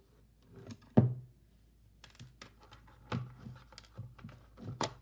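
Handling noise from taking apart a speaker system by hand: a sharp knock about a second in, then a run of small clicks and taps with a couple of firmer knocks as parts are moved and prodded.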